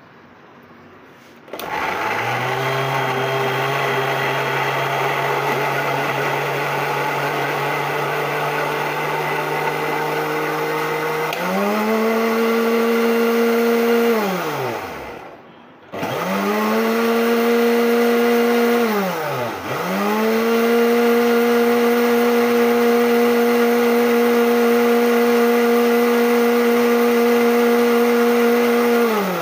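National electric blender running, blending chopped onion, ginger and green chillies with water into a paste. The motor starts a second or so in and steps up in pitch about eleven seconds in. It winds down to a stop, restarts, dips briefly, then runs steadily until it winds down again.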